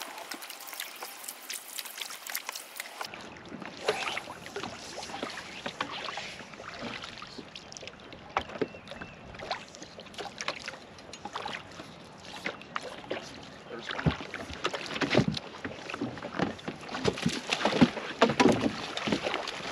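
Water splashing and sloshing with many scattered knocks and thumps, louder near the end, with an abrupt change in the sound about three seconds in.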